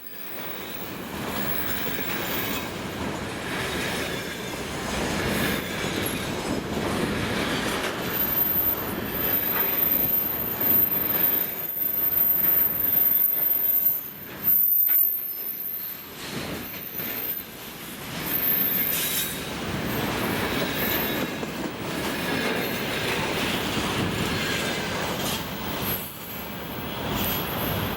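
Container freight train rolling past, a steady loud rumble of steel wheels on the rails, with a thin high squeal for several seconds around the middle.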